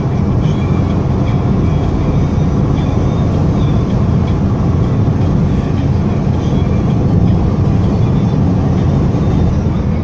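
Steady low rumble of a car's engine and tyres on the road, heard from inside the cabin while driving.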